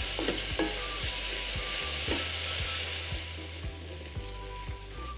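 Sliced onions with chillies and curry leaves sizzling in hot oil in a pan, frying toward golden; the sizzle softens about three and a half seconds in.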